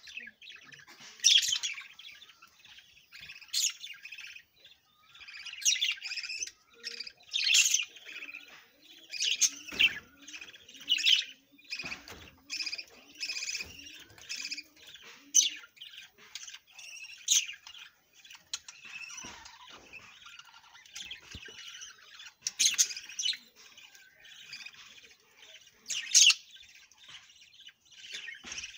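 Budgerigars at a nest with chicks calling in a continuous string of short, high-pitched chirps, with a sharper, louder call every few seconds.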